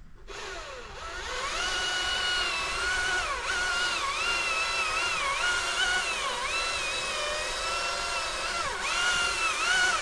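Chainsaw speeding up about a second in, then cutting into cherry wood, its whine dropping in pitch each time the chain bites under load and rising again between bites.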